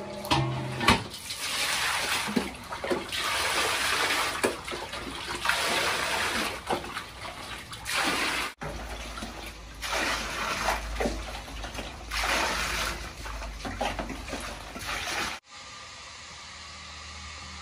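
Water poured scoop after scoop from a plastic dipper into a large stainless steel basin, splashing in repeated swells every second or two. Near the end the splashing cuts off to a low steady hum.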